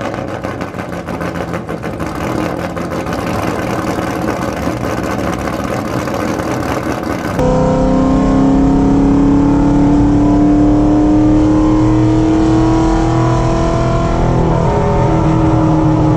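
Dodge Challenger SRT 392's 6.4-litre Hemi V8 running just after being started. About halfway through it turns into a louder, steady drone whose pitch slowly rises, with a brief dip near the end.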